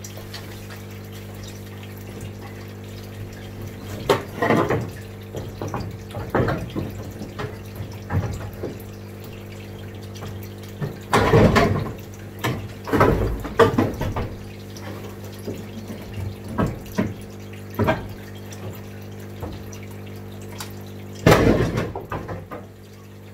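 Pliers crimping and snapping off leftover plastic from the cut edge of an IBC tote's top, with scattered clicks and cracks; the two loudest come about eleven seconds in and near the end. A steady hum and trickling water run underneath.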